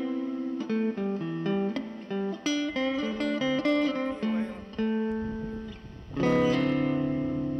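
Background guitar music: a melody picked in single notes, with a louder chord ringing out about six seconds in.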